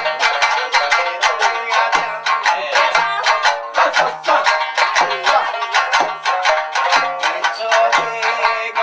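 Music: a quick plucked-string melody over a steady low beat about once a second.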